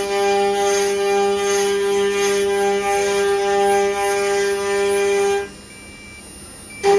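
Eight-spindle CNC router carving wooden blanks on its rotary axes: a steady whine of the spinning cutters in the wood with a hiss of chips over it. It stops abruptly about five and a half seconds in and starts again just before the end, leaving a fainter steady hum between.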